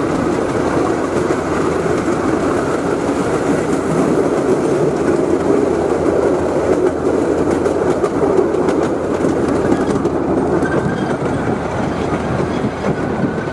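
A restored 1957 miniature ride-on train running steadily along its track, heard from aboard, with light clicking through the steady running noise.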